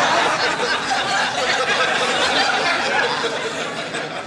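Studio audience laughing, a dense crowd laugh that eases off slightly near the end.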